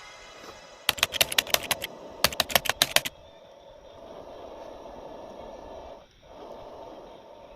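Two quick runs of sharp clicking taps, about a dozen in all, followed by a steady hiss.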